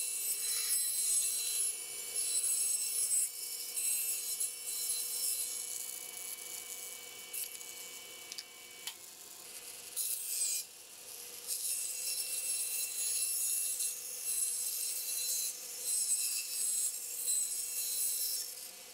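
Bandsaw blade cutting a circle out of a cedar board as the blank is turned on a circle-cutting jig: a steady high hiss of sawing over the saw's faint running hum. The sawing drops away briefly about nine seconds in, then starts again.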